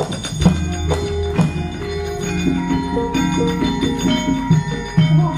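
Javanese gamelan playing, with mallet-struck bronze metallophones sounding notes in a quick pattern over a deep, low gong tone that rings from about half a second in.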